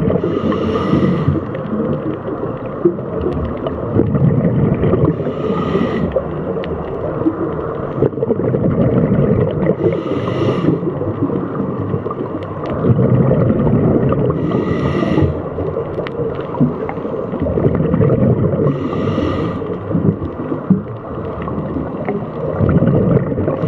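A scuba diver's breathing through a regulator, heard from an underwater camera: a short hissing inhale about every four to five seconds, with low bubbling and rumbling water noise in between.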